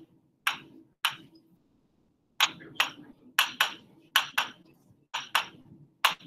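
Marker tip tapping on a writing board as digits and multiplication dots are written: about a dozen sharp, short taps, often in close pairs, with brief gaps between them.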